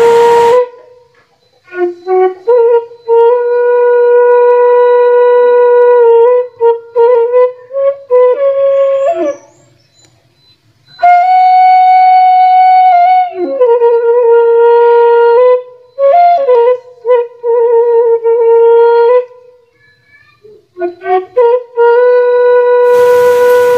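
Background music: a solo flute melody of long held notes with a slight vibrato, broken by short gaps and two brief pauses. Rain hiss sits under it for the first half second.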